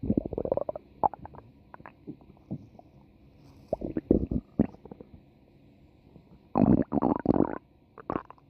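Stomach growling: a string of irregular gurgles and squeaky bubbling, with a rising gurgle at the start, scattered short ones after, and a longer bout about six and a half seconds in.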